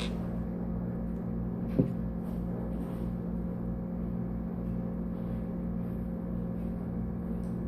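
A steady low hum, with one brief short sound about two seconds in.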